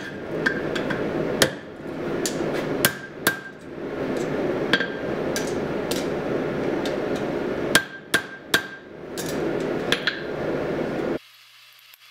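Hand hammer striking a red-hot steel horseshoe on an anvil: about ten sharp blows at uneven spacing, each with a short metallic ring, over a steady rushing noise from the running forge. The sound drops away abruptly about a second before the end.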